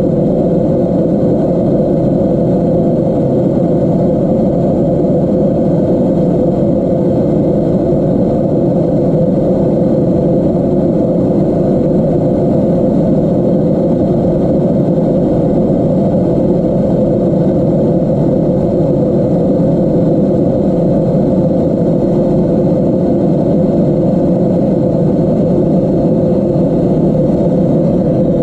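Refrigerator running with a loud, steady drone that holds unchanged throughout: the strange noise the fridge is making.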